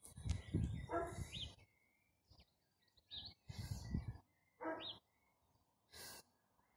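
Wind gusting on the microphone in patches, with a few short animal calls, two of them clearer calls about a second in and just before five seconds.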